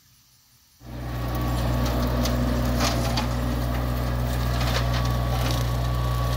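Kubota compact tractor's diesel engine running steadily under load while its Kodiak rotary cutter mows through tall weeds, with scattered sharp cracks as the blades strike stalks and sticks. The sound cuts in abruptly about a second in.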